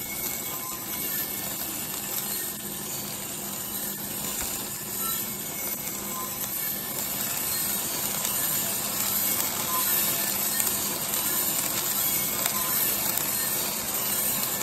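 3 kg Mill City drum coffee roaster running, its drum turning slowly at about 10 rpm with a 1 kg charge of green coffee beans tumbling inside: a steady mechanical noise with a faint low hum.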